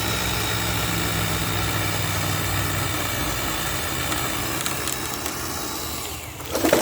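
Battery-powered chainsaw running steadily as it cuts through a log for firewood, with a short loud clatter near the end as the cut finishes.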